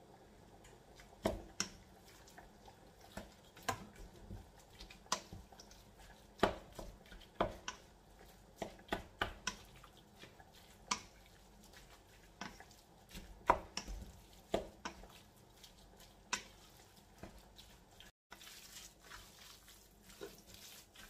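Wooden spatula knocking and scraping against a large stainless steel bowl while minced meat and shredded cabbage are stirred together, giving irregular clicks and taps about once or twice a second.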